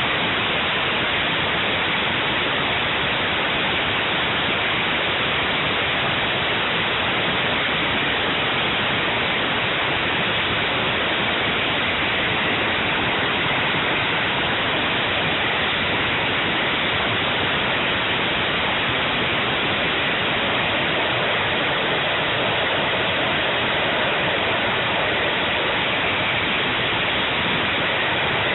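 Homemade jet engine running steadily: an unbroken, even rush of noise that holds the same level throughout.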